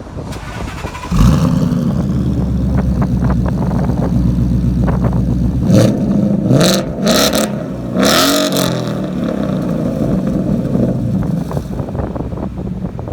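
2016 Ford Mustang GT's 5.0-litre V8 starting up about a second in and running at a fast idle. Between about 6 and 9 seconds it is revved several times, each rev rising and falling, then it drops back to a steady idle.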